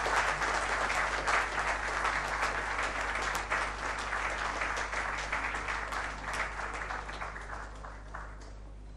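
Audience and people on stage applauding, the clapping dying away over the last couple of seconds.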